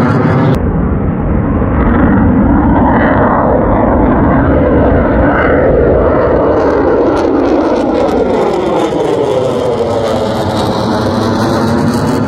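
Loud jet engine noise of a military fighter jet flying overhead, with a sweeping, phasing quality as the aircraft passes.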